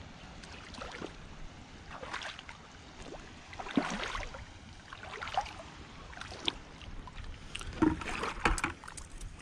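Shallow seawater splashing and sloshing in irregular bursts, with the biggest splashes about halfway through and near the end.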